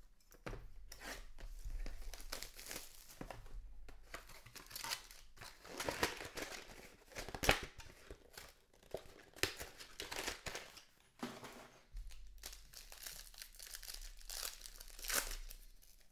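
Trading-card packaging being torn open and handled: a run of ripping and crinkling wrapper sounds with a sharp click about seven and a half seconds in.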